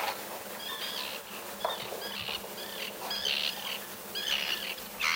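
Birds chirping over and over, short high arching calls about twice a second.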